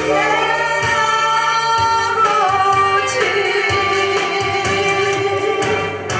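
A solo singer holds long notes over a backing band in a Korean popular song. The voice steps down in pitch a little past two seconds in and holds the lower note.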